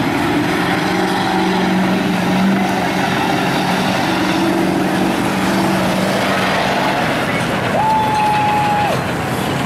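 Engine of a lifted Chevy pickup on giant tires running steadily as the truck drives slowly across dirt. A single held tone about a second long sounds near the end.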